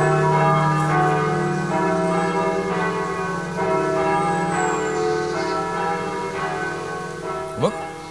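Church bells ringing, with a new strike about once a second over long, overlapping ringing tones. Near the end a brief rising swoop stands out as the loudest moment.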